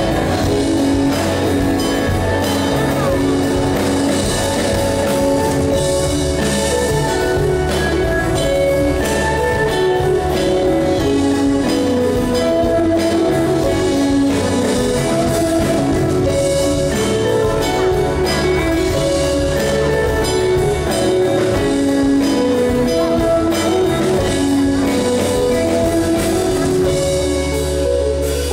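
Live band playing: strummed acoustic guitar with a drum kit.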